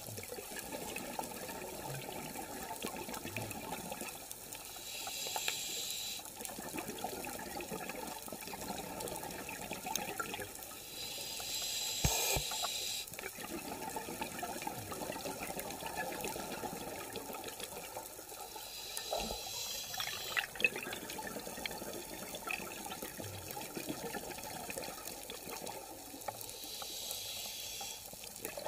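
Underwater sound of scuba breathing: four rushing bursts of exhaled regulator bubbles, about seven seconds apart, over a steady low rush of water.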